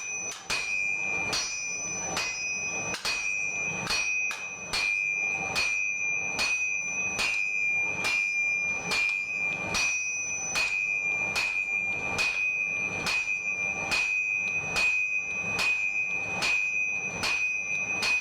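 Blacksmith's hammer striking a steel axe blank on an anvil in a steady rhythm, about two blows a second, each blow ringing the anvil with a sustained high ring.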